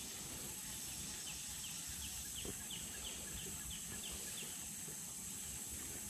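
Quiet pond ambience: a steady high hiss, with a run of about ten short, high chirps, roughly three a second, from a small calling animal in the first half.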